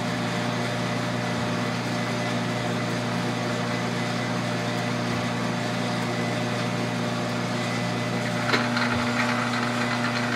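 An old South Bend metal lathe running under power with a steady hum while it takes a light 0.002-inch threading pass on a square thread. There is a click about eight and a half seconds in, and the hum changes slightly after it.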